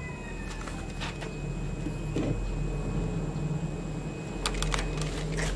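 A spring airsoft rifle being handled: light clicks and knocks, two about a second in and a quick cluster near the end, over a steady low rumble.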